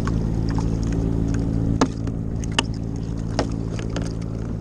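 A steady low mechanical hum, with three short sharp clicks spaced a little under a second apart in the middle.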